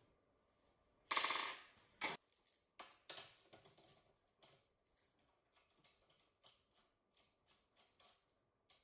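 Small metal-on-metal clicks and taps of a wrench and hand tools working bolts on a steel tube frame. There is a brief louder clatter about a second in and a sharp knock about two seconds in, then scattered light ticks.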